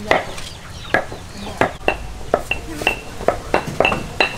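Large iron wok being handled and scoured: quick repeated metallic knocks and scrapes, about two to three a second, many with a short high ring.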